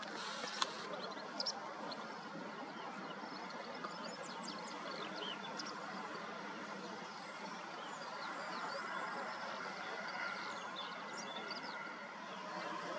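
Small birds chirping and twittering over a steady outdoor background hiss. There is a short burst of hiss and a sharp knock in the first second or so.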